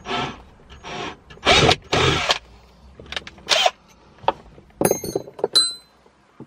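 Cordless drill run in several short bursts, boring pilot holes through the plastic centre console trim ahead of the 8 mm bit. A few light metallic clinks follow about five seconds in.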